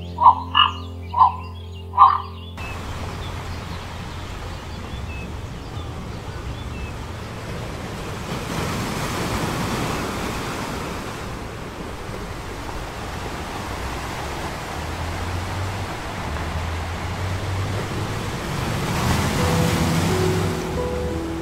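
Sea surf washing onto a sandy beach, an even rushing that swells about a third of the way in and again near the end. Before it, in the first two seconds, comes a series of short, evenly spaced croaking calls over a low steady drone.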